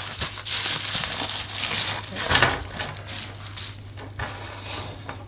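Plastic bubble wrap crinkling and crackling as it is handled and unwrapped from small resin miniatures. The rustling is busiest in the first half, with a louder crackle about two and a half seconds in, then thins out.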